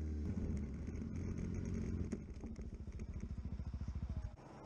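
Motorcycle engine heard from the rider's onboard camera, running low after slowing down, with an even pulsing beat like a slow idle from about two seconds in. A few small knocks come over it as the bike rolls onto rough dirt, and the engine sound cuts off suddenly near the end.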